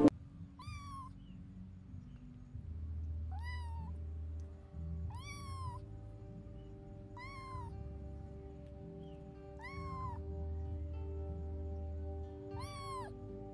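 A very young kitten meowing: six short, high calls, each rising and then falling in pitch, spaced a couple of seconds apart.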